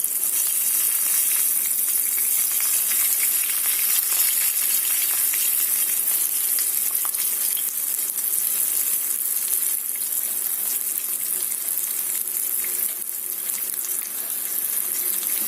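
Flour-dredged hake pieces sizzling in a hot frying pan: a steady high hiss with small crackles and pops.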